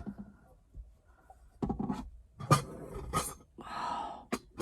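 Things being handled and put away in a small cab: several knocks and clatters about two to three seconds in, then a short rustle and a click near the end.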